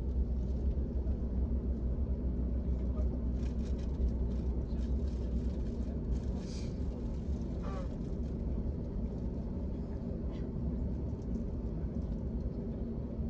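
Steady low rumble of cabin noise inside a British Airways Airbus A380, with a few faint clicks.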